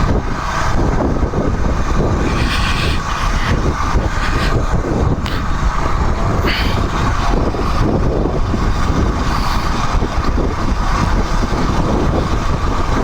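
Royal Enfield Himalayan 411 motorcycle riding at steady cruising speed: a constant mix of its single-cylinder engine, tyre noise and wind rushing over the microphone.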